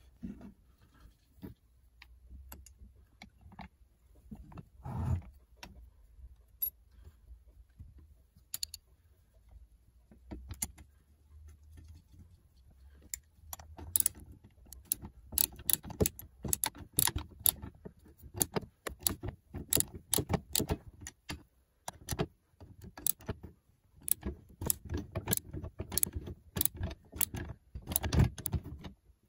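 Small metal parts of a hand drill clicking and tapping against each other as they are fitted onto the gear housing by hand: scattered clicks at first, then a dense run of sharp clicks from about halfway through.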